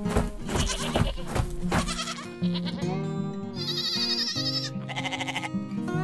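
Background music with a beat, and a sheep bleating with a wavering call about halfway through, lasting about a second.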